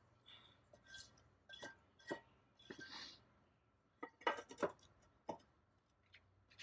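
Faint, scattered clinks and knocks as a potter's wheel is set up, with a brief wet wipe across the wheel head about three seconds in. A cluster of sharper knocks comes a little past the middle.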